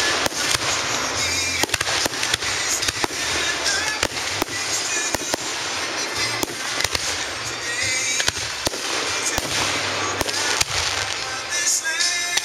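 Aerial fireworks display: shells bursting one after another, with a dense run of sharp bangs and crackling reports all through.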